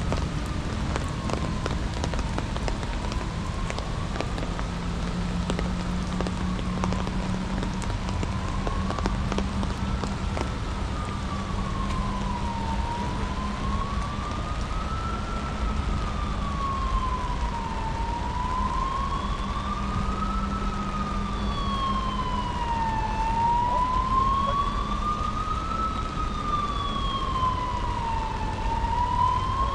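An emergency vehicle's siren wailing, rising and falling slowly about once every five seconds and growing louder from about halfway through, over steady rain.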